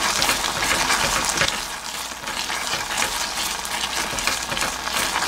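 Wooden spoon stirring thick red beans in a stainless steel pot as their water simmers down: a dense wet bubbling and crackling.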